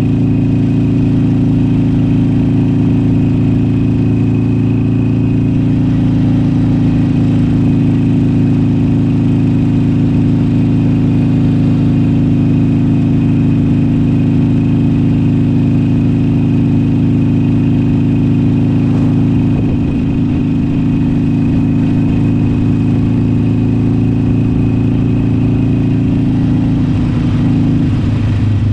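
Harley-Davidson Iron 883's air-cooled 883 cc V-twin running steadily at cruise, its note dropping in pitch near the end.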